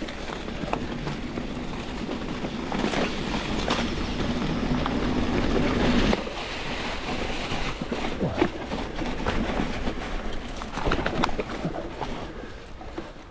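Mountain bike rolling downhill on a frozen, leaf-covered forest trail: the 29-inch Maxxis Forekaster tyres crunch through dry leaves over hard ground, and the bike clicks and rattles over bumps. The noise builds as the bike picks up speed, then drops suddenly about six seconds in.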